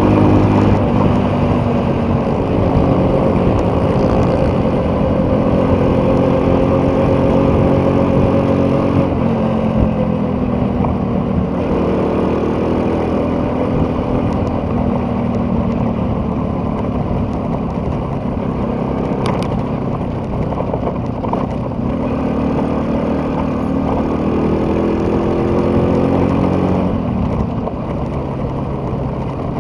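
A vehicle's engine running while under way, its pitch holding steady, dropping twice between about nine and twelve seconds in and climbing again near the end as it slows and speeds up, over a steady rushing noise.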